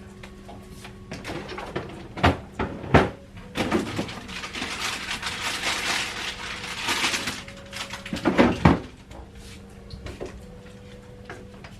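Kitchen prep sounds: cupboards and cookware knocking and clattering several times, with a hissing noise lasting a few seconds in the middle, over a faint steady hum.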